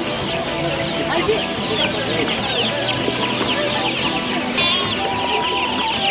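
A dense chorus of baby chicks peeping: many short, high, falling cheeps overlapping without pause.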